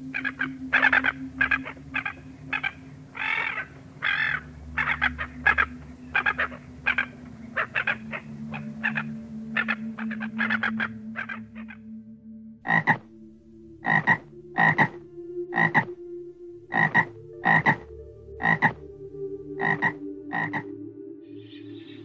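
A run of short, repeated animal calls, several a second for about the first eleven seconds, then slower single calls about once a second, over a faint steady low hum.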